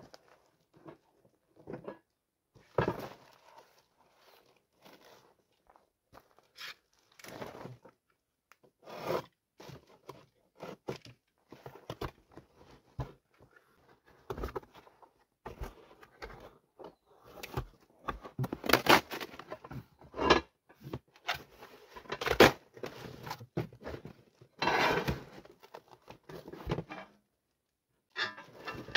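Plastic wrapping and cardboard packaging rustling, crinkling and tearing in irregular bursts as a boxed stove is unpacked, with occasional knocks from parts being handled. The busiest, loudest stretch comes in the second half.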